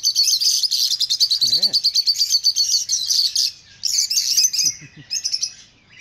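A flock of peach-faced lovebirds chattering: rapid, high-pitched chirping, unbroken for about three and a half seconds and then in shorter bursts with pauses.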